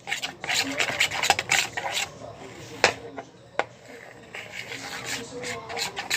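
A utensil scraping and rubbing around a container while stirring a glue-based slime mixture, in a run of uneven rasping strokes, with two sharp clicks about three seconds in.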